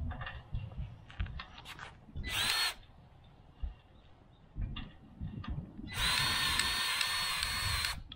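Cordless grease gun's motor whirring as it pumps grease into a grease fitting on a field sprayer: a short burst about two seconds in, then a longer one of about two seconds near the end. Light clicks and knocks of handling come in between.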